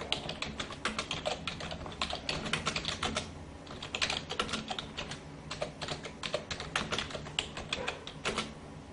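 Keyboard typing sound effect: a quick, irregular run of keystroke clicks, with a few brief pauses, that keeps time with text being typed out on screen.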